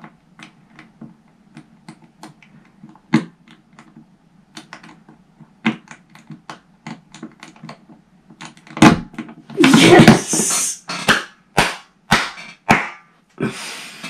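Master Lock combination padlock being worked by hand: a run of light clicks as the dial is turned, then louder metal clacks and a longer rattle of the lock being handled about nine to thirteen seconds in.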